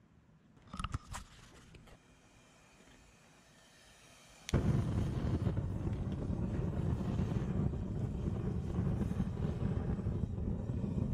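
Pipe-style propane burner fed from a propane tank lighting with a sudden pop about four and a half seconds in, then a steady loud roar of the flame. A few faint clicks come about a second in, before it lights.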